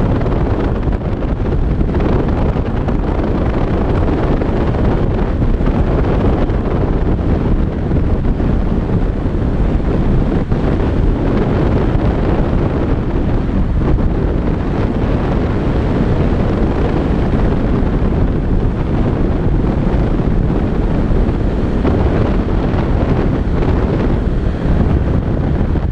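Airflow rushing over a body-mounted action camera's microphone in flight under a speed-flying wing: a loud, steady, deep wind rush.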